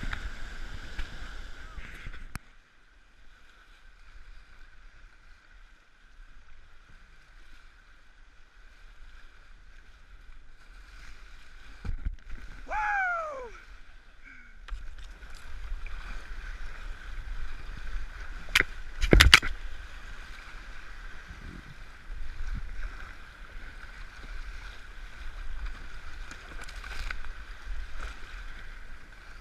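Fast water rushing and splashing around a kayak running a flooded river, with paddle splashes. A short falling cry comes about 13 seconds in. Sharp knocks follow about 19 seconds in, the loudest of them a hard knock.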